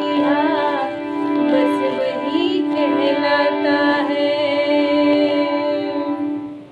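Hindi song: a female voice sings a drawn-out, wavering melody over a steady held drone. The music stops near the end.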